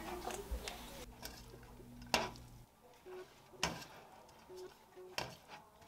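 Metal tongs clinking against a stainless steel frying pan while spaghetti is turned over in it: three sharp clinks about a second and a half apart.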